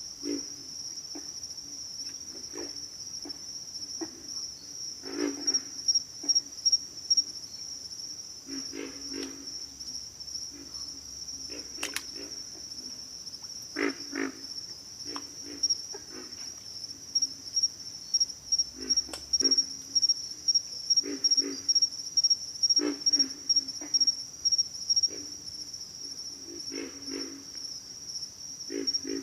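Pig frogs grunting in short, low, pulsed calls, with quick runs of grunts a few seconds in and again through the middle and later part. Behind them a steady high-pitched insect chorus.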